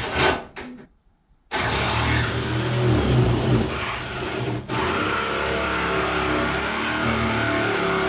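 Handheld reciprocating body saw running and cutting through a car's sheet-metal fender. It starts about a second and a half in after a few light clicks, stops briefly just past halfway, then runs on steadily.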